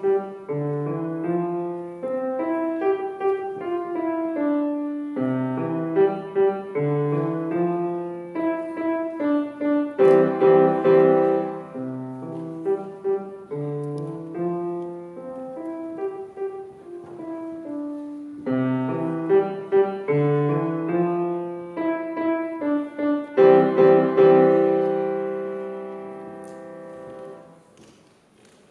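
A grand piano played solo: a simple melody over lower notes in short phrases. About 23 seconds in, it lands on a held chord that rings and fades away.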